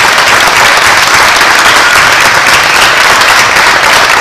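Large audience applauding, a steady dense clapping that holds at an even level.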